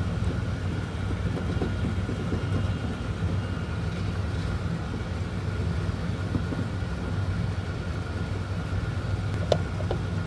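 Steady low motor hum with a thin high whine over it, unchanging throughout, and a couple of light clicks near the end.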